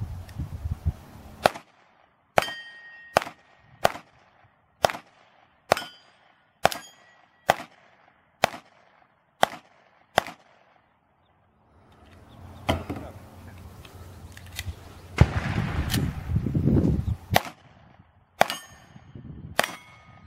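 Pistol shots fired at steel plate targets, about one a second for the first ten seconds, many followed by the short ring of a struck steel plate. After a pause of a second or two, a few more shots come more spread out over a steady rushing noise.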